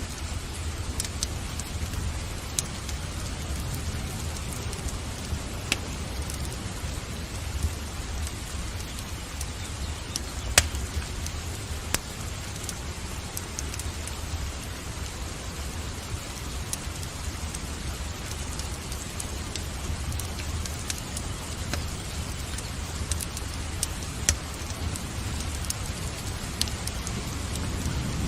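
Steady rain with a low rumble underneath, and a wood fire in a fireplace crackling with scattered sharp pops, the loudest about ten seconds in.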